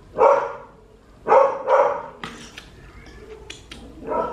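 A dog barking four times: one bark, a quick pair about a second later, and one more near the end. Light clicks of cutlery on a plate come between the barks.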